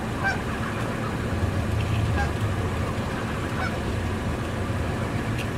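Canada geese giving a few short, soft honks while feeding, over a steady low rumble.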